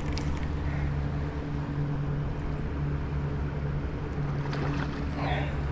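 An engine running steadily with an even low hum.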